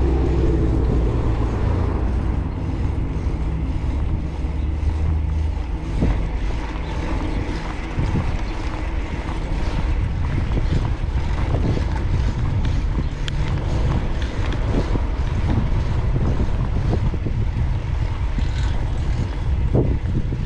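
Wind buffeting the microphone of a cyclist riding through city traffic, a steady low rumble throughout, with a low hum for the first several seconds and a few short knocks.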